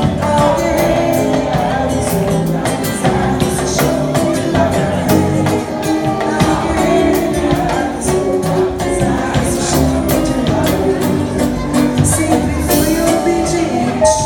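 Music with a singing voice over a steady percussion beat.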